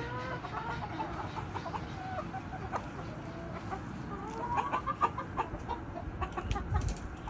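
A flock of chickens clucking with short calls, with a quick run of rising calls about four and a half seconds in.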